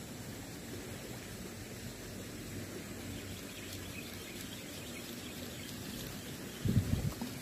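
Night-time riverside ambience: a steady low rumble of background noise with a faint steady high tone over it, and a brief low thump near the end.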